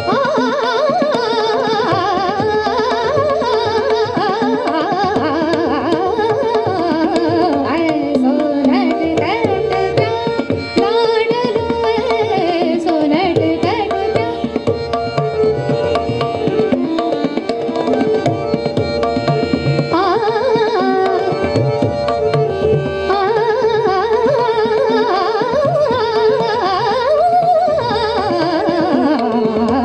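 Hindustani classical music: a woman sings long, gliding melodic phrases, accompanied by tabla and a harmonium.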